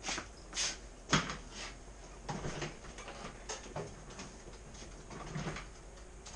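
Scattered knocks, clicks and rustles of people moving about and handling things at office desks, with the sharpest knock about a second in.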